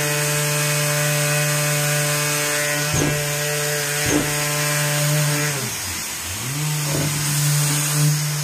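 SurfPrep 3x4 electric Ray sander with a half-inch medium-grade foam pad, running at 9,000 RPM as it scuff-sands a painted stepped door profile: a steady hum with a few light knocks. About six seconds in, it winds down and quickly spins back up.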